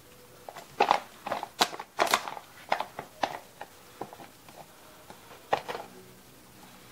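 A fork scraping and tapping against a Mountain House food pouch and folding plastic bowls as food is scooped out: a dozen or so short clicks and scrapes, most of them in the first three seconds.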